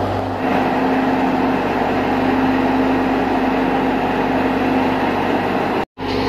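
Tractor-driven wheat thresher running steadily under load, a loud drone with a constant hum. The sound cuts out for a moment near the end.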